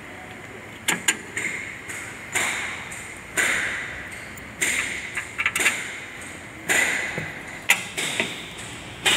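Hammer blows on a steel part of a rotovator's side drive, about a dozen strikes at roughly one a second, some in quick doubles, each ringing briefly after the hit.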